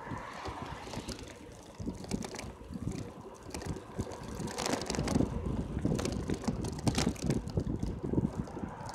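Riding a bicycle on an asphalt road: wind buffeting the microphone over a steady rumble of tyres on the road, with rattling clicks and knocks that grow louder and more frequent from about halfway through.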